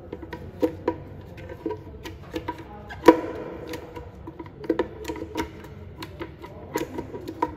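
Spatula scraping thick blended bean paste out of a plastic blender jar, with irregular hollow knocks and taps of the spatula against the jar. The loudest knock comes about three seconds in.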